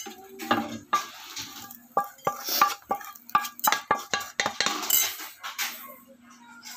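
Wooden spatula and frying pan clattering: a rapid, irregular run of sharp knocks and scrapes as the spatula works in the pan and the pan is lifted and moved on the stove.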